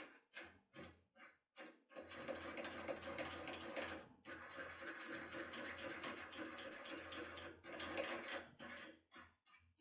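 Securemme K75 foil impressioning tool being rocked back and forth in a cylinder lock's keyway: a few separate clicks, then long runs of fast, dense clicking and rattling with a brief pause in the middle.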